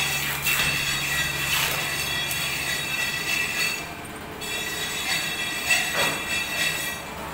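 A steady, high-pitched metallic squeal runs on under several clanks and knocks from the metal multi-gym station as its seat and pec-deck arms are handled and worked.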